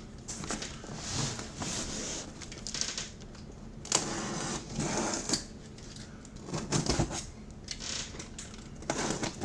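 Irregular rustling, scraping and knocking of a packed case being handled and opened.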